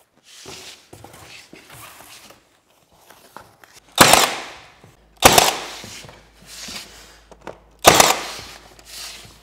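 Milwaukee cordless nailer firing nails into baseboard trim: three sharp bangs, each about a second or more apart and trailing off over about a second.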